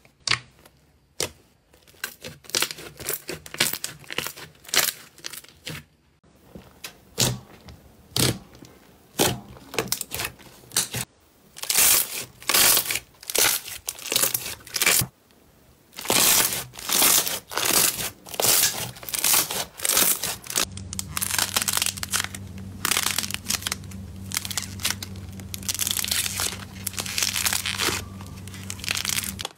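Slime being pressed, poked and squeezed by hand, making an irregular string of sticky squelches, pops and crackles.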